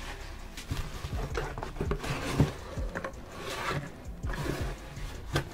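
Bubble-wrap packaging crinkling and rustling while a cardboard box is pulled out of its shipping carton, with knocks of cardboard. A sharper knock comes about two and a half seconds in.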